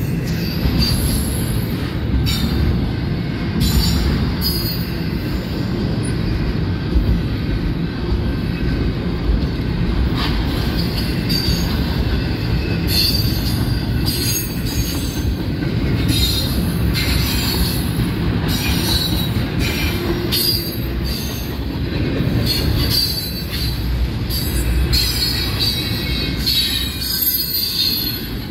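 Double-stack intermodal freight cars rolling past close by: a steady, heavy rumble of steel wheels on rail, with repeated short high-pitched wheel squeals over it.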